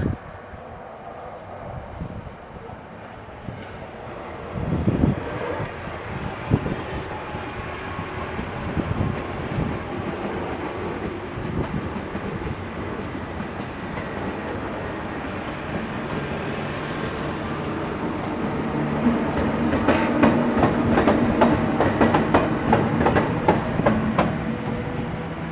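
Train running through on the tracks, growing louder as it nears. In the last few seconds its wheels clack rapidly over the rail joints.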